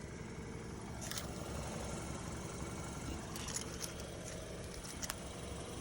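BMW F30 engine idling steadily.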